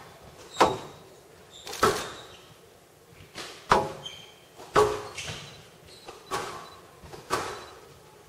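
A squash ball being struck back and forth in a rally: sharp smacks of racket and ball on the walls, about one a second, each ringing briefly in the court. Brief high squeaks from players' shoes on the court floor come between the strokes.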